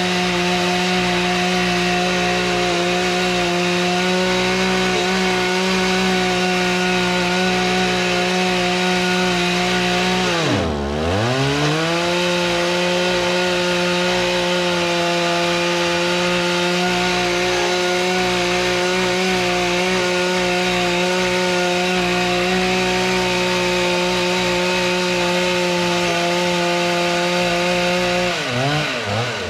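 Two-stroke chainsaw held at full throttle, cutting wood at a steady high pitch. About eleven seconds in the revs dip sharply and climb back. Near the end the revs drop and waver as the throttle is let off.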